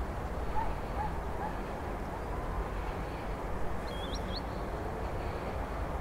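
Park ambience: a steady low background rumble, with a few faint short bird chirps in the first second and a quick cluster of high chirps about four seconds in.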